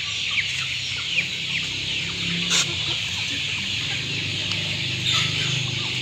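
A flock of chickens peeping and clucking: a steady, dense chatter of many short, high calls.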